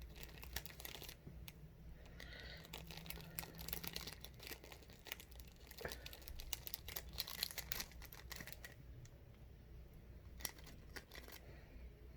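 Quiet plastic packaging crinkling and rustling with many irregular small clicks and taps, as spilled dried edible insects are gathered up by hand.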